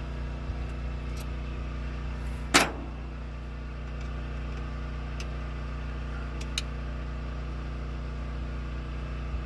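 Engine running steadily at idle, a low even hum. About two and a half seconds in comes a single sharp metallic clank, and a couple of light clicks follow a few seconds later.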